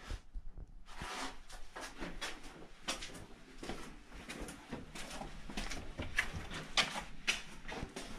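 Footsteps and camera handling noise from someone walking with a handheld camera: irregular scuffs and light knocks on a concrete floor, one or two a second.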